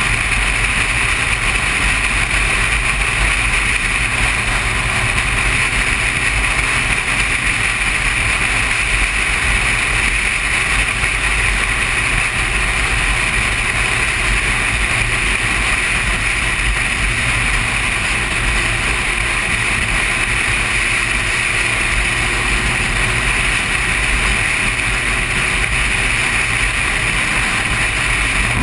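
Motorcycle cruising at steady highway speed: constant wind rush and engine and road noise, with no revving or gear changes.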